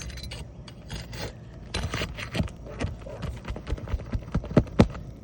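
Metal tool working under asphalt roof shingles to free one for removal: from about two seconds in, a quick, irregular run of sharp clicks, taps and scrapes.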